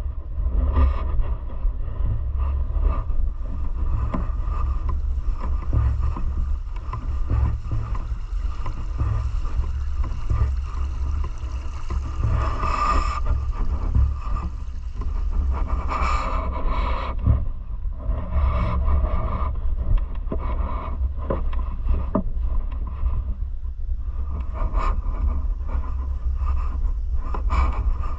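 Steady low rumble with scattered scraping and clicking.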